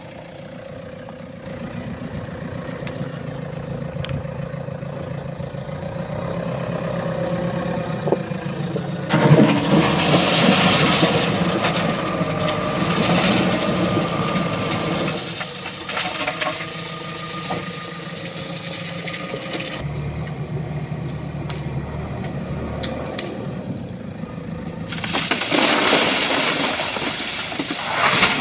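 A JCB 3DX backhoe loader's diesel engine runs steadily. Twice, about nine seconds in and again near the end, there are several seconds of loud, noisy clattering, with a few sharp clicks in between, as metal is loaded into the dumper.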